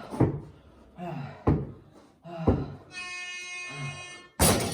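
A basketball thudding several times on the floor in a small room, the hardest hit near the end. A steady held tone with overtones sounds for over a second about three seconds in.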